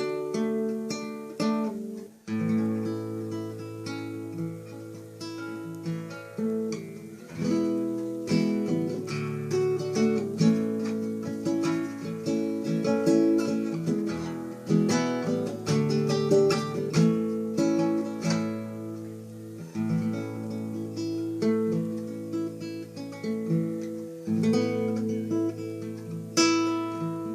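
Solo acoustic guitar played fingerstyle: a plucked melody over held bass notes, with a brief break about two seconds in.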